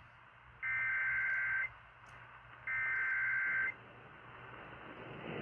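Emergency Alert System SAME header over the air: two bursts of digital data tones, each about a second long and a second apart, the second and third of the header's three bursts. A hiss rises near the end.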